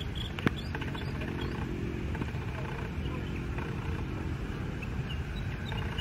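Boeing 737 jet engines running at low taxi power: a steady low rumble, with faint high chirps over it. A single sharp click about half a second in.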